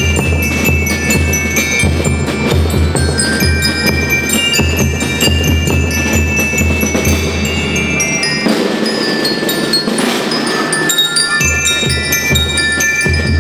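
School rhythm band playing: bell lyres ring out a melody over a steady pulse of snare and bass drums. About two-thirds of the way through, the drums drop out for roughly three seconds, leaving the lyres and a bright cymbal-like wash, and then they come back in.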